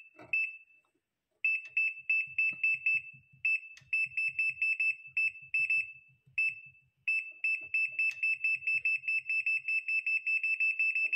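Electric oven's touch-control panel beeping as the plus button is pressed and held to step the cooking timer up: short, high beeps in quick runs broken by brief gaps, then a steady rapid string of beeps from about seven seconds in.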